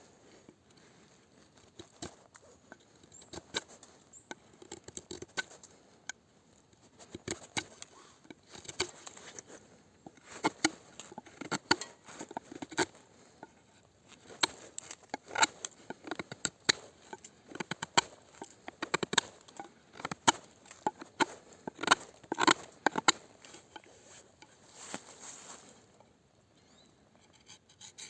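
A Mora Frosts S-201H knife blade making irregular short cutting and scraping strokes, a few a second at their busiest, sparse at first and thinning out near the end.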